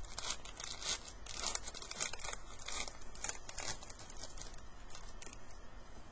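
A hockey card pack's wrapper being torn open and crinkled: a quick run of crackling, rustling strokes that thins out after about four seconds.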